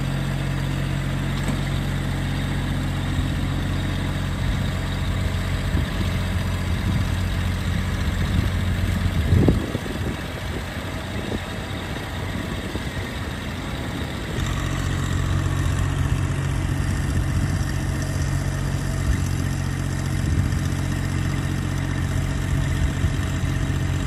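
Massey Ferguson GC1723E subcompact tractor's three-cylinder diesel engine running steadily. About nine and a half seconds in there is a loud clunk and the engine's low note drops out, then comes back about five seconds later and runs on.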